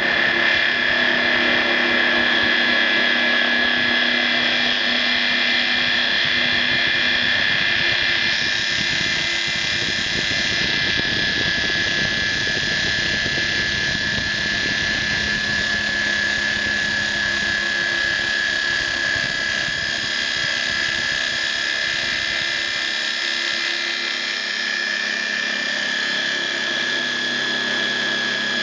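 CNC router spindle motor running steadily with a high whine over a hiss, its tone shifting slightly about eight seconds in.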